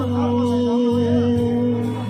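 Man singing live into a microphone over backing music, holding one long steady note.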